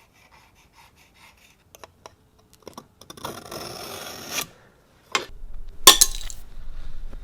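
Metal workshop sounds from cutting and handling bracket stock: light ticks, a brief scraping rasp, then sharp metallic clanks, the second loud and ringing.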